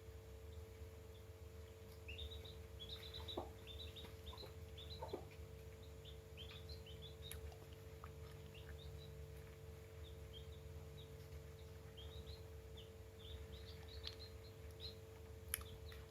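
Young chicks peeping: many short, high chirps scattered throughout, over a steady low hum.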